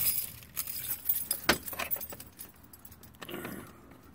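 A bunch of car keys jangling and clinking as they are handled, with a sharp clink about a second and a half in.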